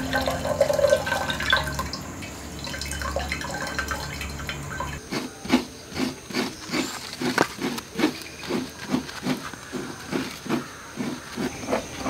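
Liquid pouring into a glass jar, then about five seconds in a steady run of soft rhythmic strokes, about two a second.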